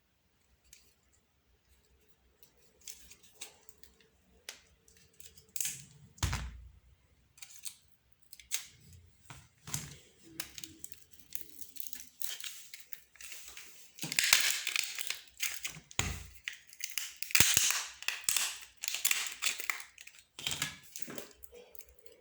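Clicks, snaps and scraping of plastic and small parts as an old telephone is taken apart by hand. It starts sparse and grows busier later, with a dense run of sharp snaps and rasping scrapes.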